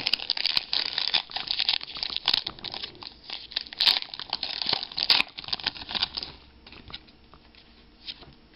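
Foil wrapper of a sports-card pack being torn open and crinkled in the hands, a dense crackling for about six seconds that then thins to a few soft clicks and rustles.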